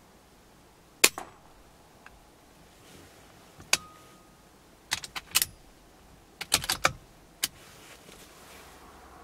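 A single sharp shot from a .22 BSA Super 10 pre-charged air rifle about a second in, then several groups of short metallic clicks and clacks over the following seconds.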